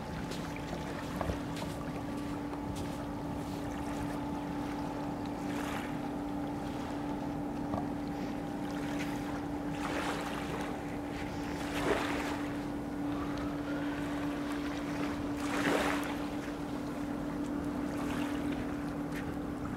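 Distant ferry's engines droning steadily across the water over wind and lapping waves, with a few short rushes of noise about ten, twelve and sixteen seconds in.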